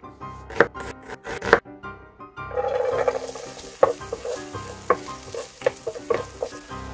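A knife chops through an onion on a wooden cutting board a few times. About two and a half seconds in, diced onion starts sizzling in hot clarified butter in a frying pan, with a wooden spatula stirring and scraping across the pan about twice a second.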